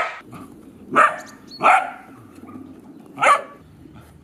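Puppy barking: four short single barks about a second apart.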